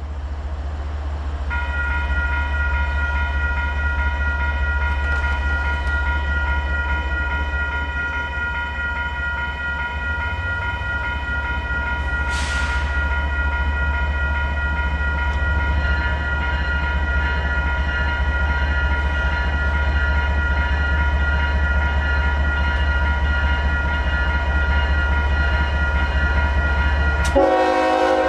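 Grade-crossing warning bells ringing steadily over a low rumble, with more bell tones joining about halfway through. About a second before the end, the lead Norfolk Southern ES44AC's Nathan K5HL air horn starts to blow.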